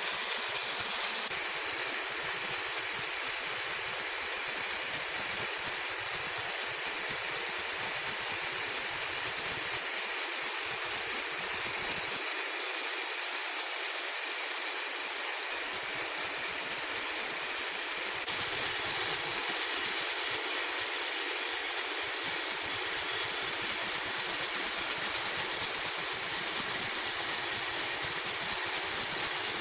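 Steady hissing noise of sawmill machinery running, with no distinct strokes or cuts standing out.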